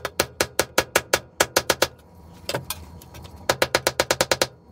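Claw hammer tapping rapidly on a galvanized sheet-steel stove door held over a pipe, denting a dimple into the metal. Two quick runs of taps, about six a second, with a short pause and a single tap between them.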